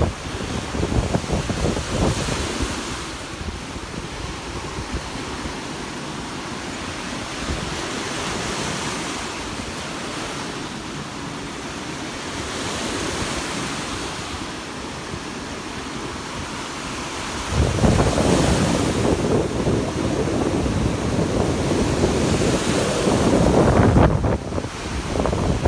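Small Lake Erie waves breaking and washing up on a sandy beach, a hiss of surf that swells every few seconds. Wind buffets the microphone, heavily from about two-thirds of the way through.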